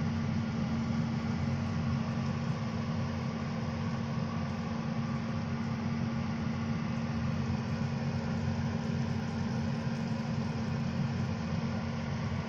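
Steady low machine hum with a hiss over it, cutting off suddenly at the end.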